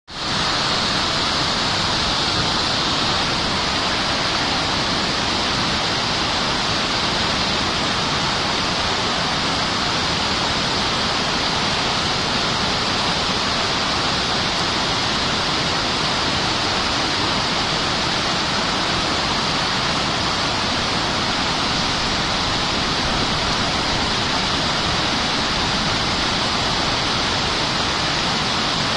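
Mountain waterfall on the Alibek river, a loud, steady rush of falling water.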